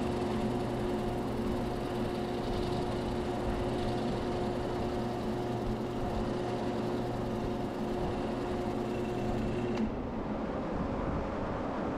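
Grizzly G0462 variable-speed wood lathe running at about 620 rpm, a steady motor whine under the hiss of a sanding pad held against the spinning wood. About ten seconds in the motor tone stops with a click as the lathe is switched off and the piece coasts down.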